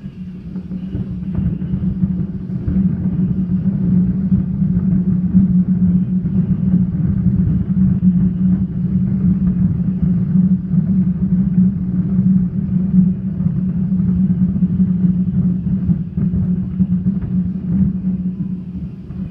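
Fireworks grand finale: rapid, overlapping aerial shell bursts merging into one continuous low rumble, with no break between the bursts.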